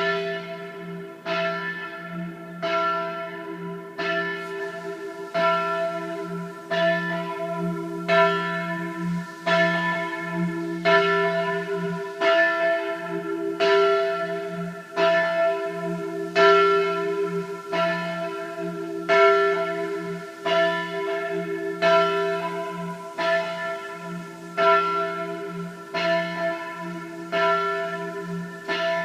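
Church bells ringing loudly, with a clear strike about every second and a third and a deep hum from a large bell sounding underneath throughout.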